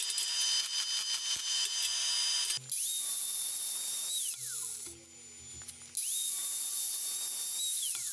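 A dense crackling hiss, then an angle grinder grinding steel twice: each time a steady high whine for about a second and a half, then switched off and winding down in pitch.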